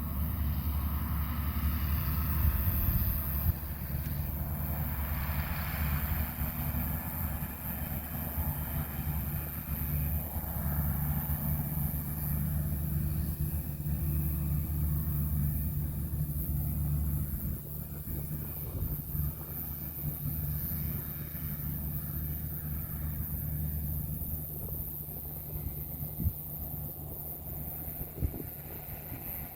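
Engine of harvesting farm machinery running steadily with a low hum, growing quieter about halfway through.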